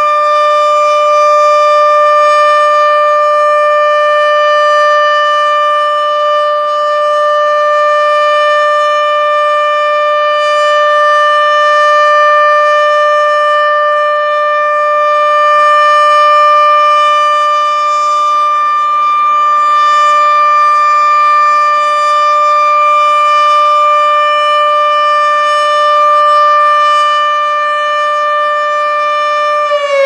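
ASC OM-120 omnidirectional mechanical outdoor warning siren, its 7.5 HP motor spinning a 9-port chopper, sounding a loud, steady single-pitch tone at full speed. The loudness swells and dips slightly every few seconds.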